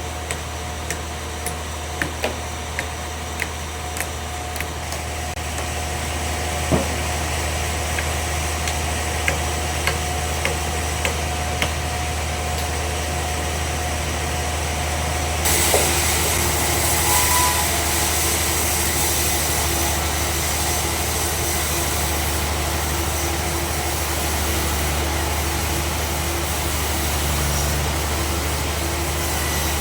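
Sawmill bandsaw machinery running with a steady low hum and scattered sharp ticks. About halfway through, a loud steady hiss joins in and continues.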